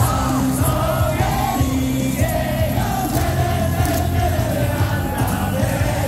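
A cheer song playing over the baseball stadium's loudspeakers, with a large crowd singing and shouting along to a steady beat.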